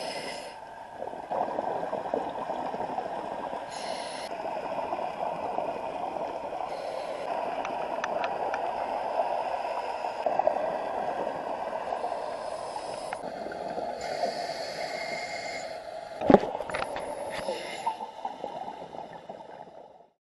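Scuba diving heard through an underwater camera housing: a steady, muffled rushing of regulator breathing and exhaust bubbles, with a few stretches of brighter bubbling hiss and one sharp knock against the housing about sixteen seconds in.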